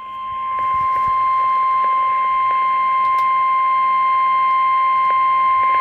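NOAA Weather Radio warning alarm tone: a single loud, steady tone near 1 kHz held without a break. It signals that an urgent warning message is about to follow.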